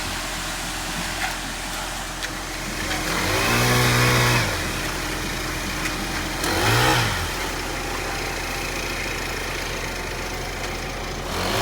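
Concrete mixer truck's diesel engine running steadily, revved up and back down twice: a longer rev about three seconds in and a shorter one about six and a half seconds in.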